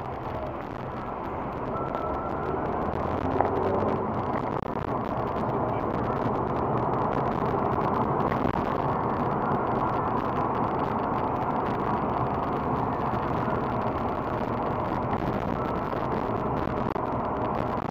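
Car driving on a city road, heard from inside the cabin: steady road and engine noise, growing a little louder over the first few seconds and then holding steady.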